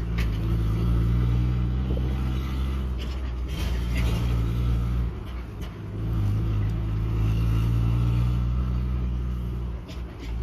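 Mercedes-Benz W123 300D's five-cylinder diesel engine running with a steady low note and a few sharp clicks, the noise the owner calls terrible. The note drops away briefly about halfway through.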